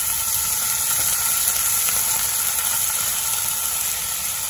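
Chopped onions and ginger-garlic paste sizzling in hot mustard oil in a frying pan as they are stirred with a silicone spatula: a steady frying hiss while the onions brown.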